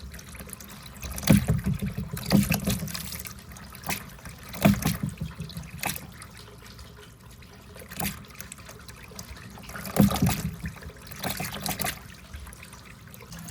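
Water marble run: water trickling steadily through the chutes, with balls knocking and splashing into the run every second or few.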